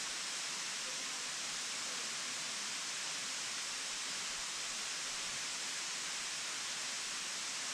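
Steady, unbroken rush of a waterfall's falling water, an even hiss with no breaks or changes.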